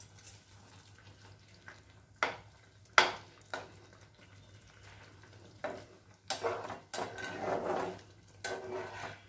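Metal spatula knocking a few times against a frying pan, then stirring and scraping through a gravy with chunks of fried pointed gourd.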